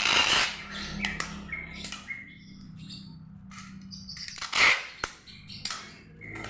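Packing material and tape being handled: a string of short rasping rustles and scrapes with brief squeaks, the loudest about two-thirds of the way through.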